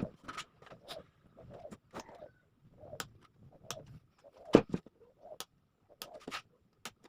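Irregular light clicks, taps and scrapes of hand work on a small wooden workpiece, with one louder knock about four and a half seconds in.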